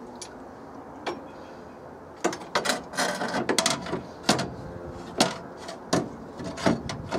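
Metal clunks, knocks and rattles of a Morris Marina pedal box being handled and set into its welded mounting bracket. A single knock about a second in, a busy run of clicks and rattles from about two to four seconds, then a few separate knocks.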